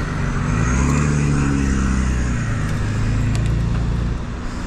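A car driving past close by: its engine drones steadily with tyre noise for about four seconds, then fades.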